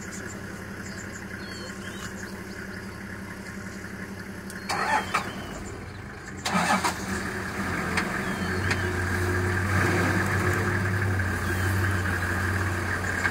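A vehicle engine running at idle, with two short loud bursts about five and six and a half seconds in, after which it runs louder.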